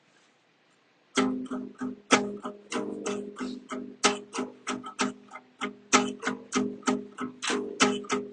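Acoustic guitar playing a slow ballad intro, a steady run of struck notes that starts about a second in.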